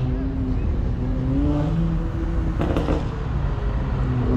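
Car engine running and revving lightly, a deep engine note whose pitch rises and settles. A short burst of noise comes about two and a half seconds in.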